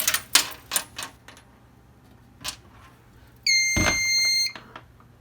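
Clicks and knocks of plugs and wiring being handled as devices are unplugged, then a single high electronic beep from the fire alarm setup, lasting about a second, with a knock partway through it.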